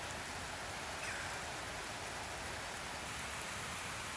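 Steady rain falling on a puddle and wet grass, an even hiss of drops.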